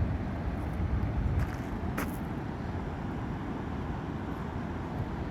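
Bow River water rushing in a steady, even flow, with a faint tick about two seconds in.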